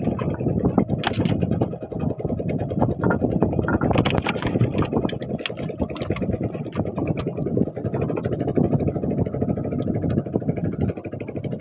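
A small boat's engine running steadily, with a few sharp knocks about a second in and again around four seconds in.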